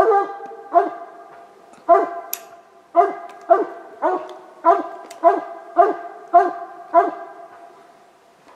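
Coonhound barking treed at a raccoon up the tree: a steady string of chop barks, about two a second, that stops about seven seconds in. This steady tree bark is the hound's signal that it has the coon treed.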